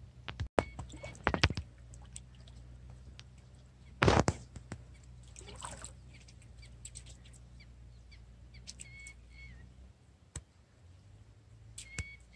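Shallow river water splashing around a wader's feet, with one louder splash about four seconds in. A bird calls twice near the end.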